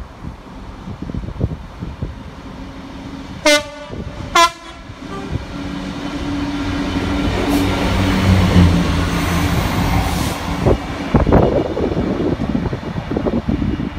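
EWS Class 66 diesel locomotive running light gives two short blasts on its horn about three and a half seconds in, then its engine grows steadily louder as it passes close by, loudest around eight to eleven seconds in.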